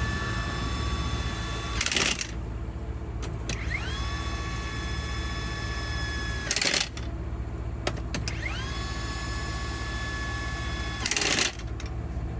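A machine motor cycling three times: each time a whine rises in pitch and holds for about four seconds, then ends in a short burst of hiss. A steady low engine hum runs under it.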